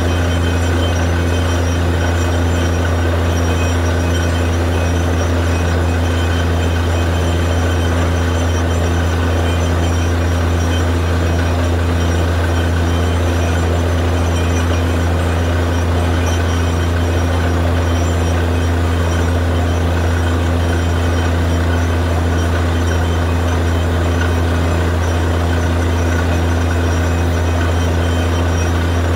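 Truck-mounted borewell drilling rig running at a steady load while drilling, a loud constant engine drone with a strong low hum and no change in pace.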